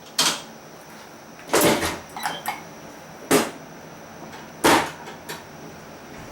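Thompson drop table's drop section snapping down under the chiropractor's thrust, a sharp clack four times about a second and a half apart, with lighter clicks between.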